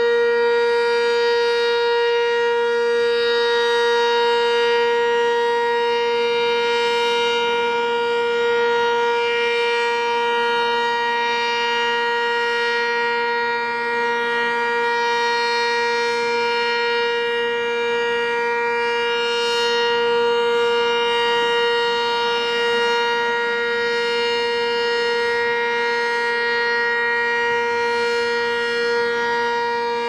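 Sentry 15V2T outdoor warning siren sounding at full speed: a loud, steady two-tone chord that holds its pitch without rising or falling.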